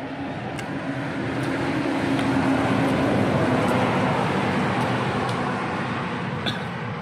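A motor vehicle passing by: engine and road noise that swells to a peak about three seconds in, then fades away.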